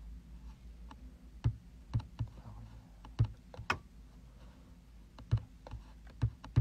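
A dozen or so irregular light taps and clicks, some with a dull thump, from fingers tapping a device to answer an online test, over a faint low hum.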